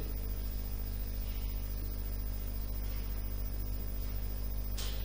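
Steady low electrical hum with a faint hiss, the recording's background noise, with one brief faint tick near the end.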